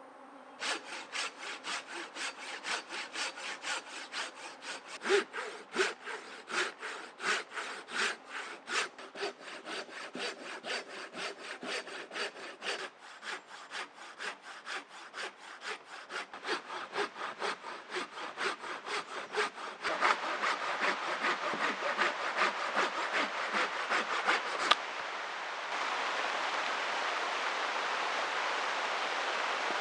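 Hand saw cutting through wood in quick, even back-and-forth strokes, about two to three a second. The sawing stops near the end and a steady rushing hiss takes over.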